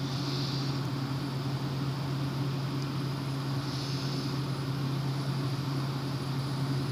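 Fidget spinner spinning, giving a steady low whirring hum over a background hiss.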